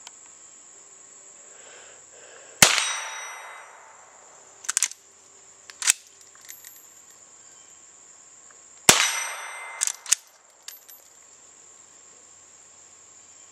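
Two .22 LR shots from a Henry Mare's Leg lever-action pistol, about six seconds apart, each with a ringing tail. Between and after the shots come metallic clicks of the lever being worked to chamber the next round.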